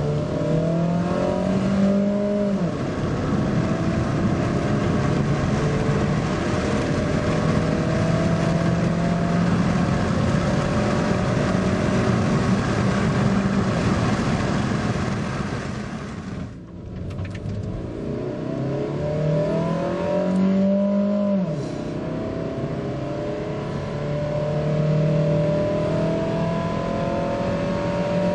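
Kia Picanto 1.1's four-cylinder petrol engine accelerating at full throttle, heard from inside the cabin with the windows open. The engine note climbs, drops as the automatic gearbox shifts up about two and a half seconds in, then climbs slowly under rising wind and road noise. About seventeen seconds in, the sound cuts to a second run that repeats the climb and the upshift.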